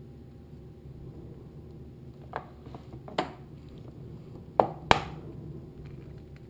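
A few sharp clicks and knocks at a plastic cutting board: a table knife set down, then two sharp taps about a third of a second apart as a hen's egg is knocked to crack it.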